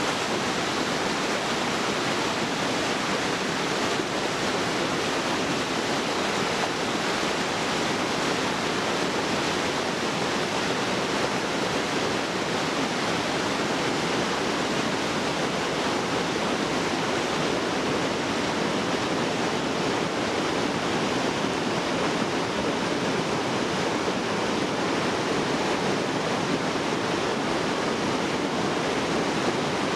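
Jungle river rapids rushing over boulders: a steady, unbroken roar of water.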